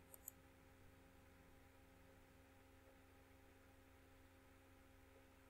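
Near silence: a faint steady electrical hum in the recording, with two faint sharp clicks just after the start, a computer mouse clicking to advance the slide.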